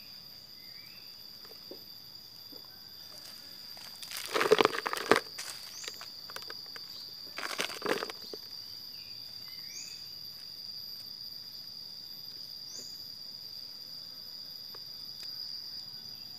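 A steady high-pitched insect drone, with two loud bursts of scraping and rustling about four and seven and a half seconds in as loose soil is handled. A few faint short chirps sound in the background.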